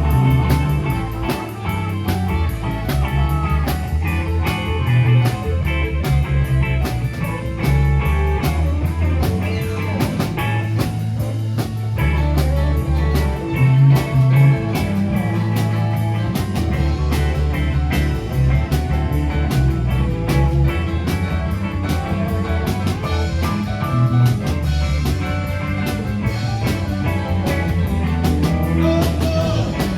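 Live rock band playing an instrumental stretch: electric guitar over bass and a drum kit keeping a steady beat, with no singing.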